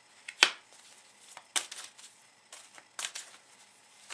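Oracle cards being drawn from the deck and laid down on a table: a handful of sharp card snaps and taps, the loudest about half a second in.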